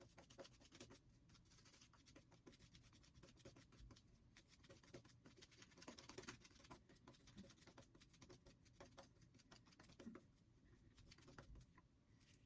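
Faint, irregular crackling scratches of a GEM Pushbutton single-edge safety razor cutting lathered stubble on the face, in short strokes.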